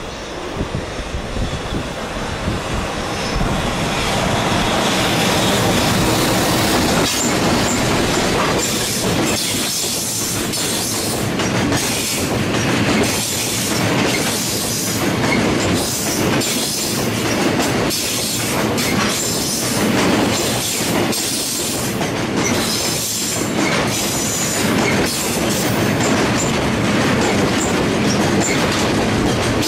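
Freight train of oil tank wagons hauled by an EF210 electric locomotive passing close by, growing louder over the first few seconds as it draws level. From about seven seconds in, the wagons' wheels clatter over the rail joints in a steady rhythm.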